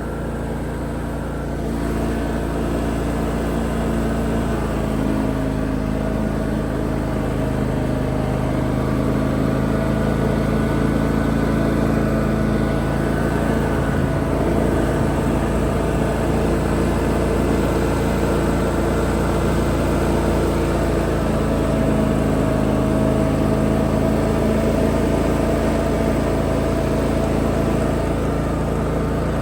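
John Deere X320 riding lawn tractor running steadily while mowing: an even engine drone over blade and deck noise, a little louder from about two seconds in.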